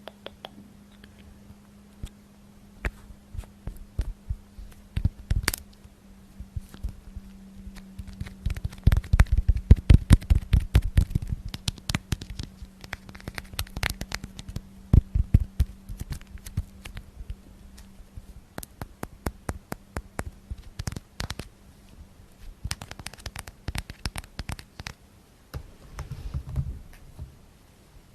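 Close-miked ASMR tapping: fingertips tapping and scratching on a hard surface in quick, irregular runs, densest and loudest about a third of the way in. A faint steady low hum sits under the first two-thirds.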